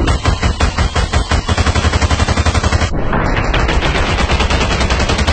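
Fast, evenly spaced percussion strokes, about eight a second, with a heavy bass beat and a bright hissing top, growing fuller about three seconds in.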